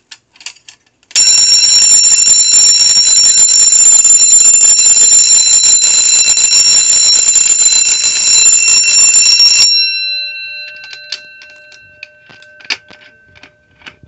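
Edwards 6-inch Adaptabel vibrating fire alarm bell set off by a manual pull station: a few clicks, then about a second in the bell rings loudly and steadily for about eight and a half seconds. It cuts out and the gong rings down over the next few seconds. Light clicks come from the pull station as it is reset.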